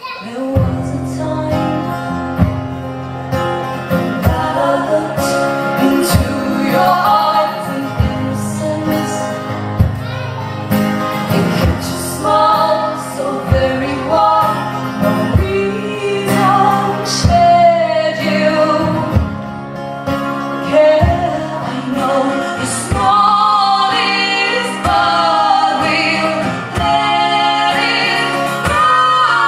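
Live song: women's voices singing over strummed acoustic guitar, with the whole band coming in at full strength right after a brief hush.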